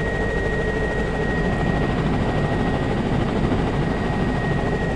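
Steady drone of a helicopter's engine and rotor heard from inside the cabin, with a thin, steady high-pitched tone above it.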